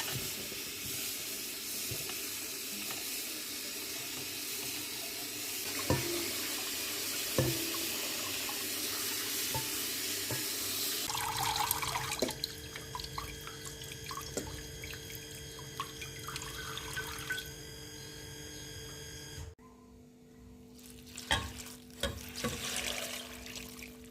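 Water running from a tap into a sink, with two knocks a second and a half apart. The water stops about halfway through, leaving steady faint tones and scattered clicks.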